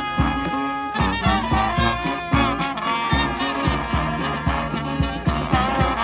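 Brass band playing an upbeat tune: saxophones, trumpets and sousaphone over a steady bass drum beat.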